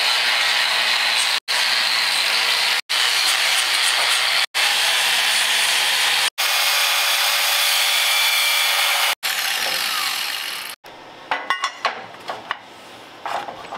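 Angle grinder grinding on a steel truck frame rail, a loud steady hiss with a high whine, heard in several short edited stretches. At about eleven seconds the grinding stops, leaving a few light knocks and clinks of metal parts being handled.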